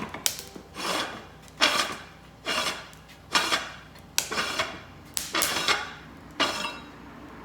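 Lumps of leftover, half-burnt charcoal clinking and knocking together as they are handled and dropped one by one: about ten hard, slightly ringing clacks at an uneven pace.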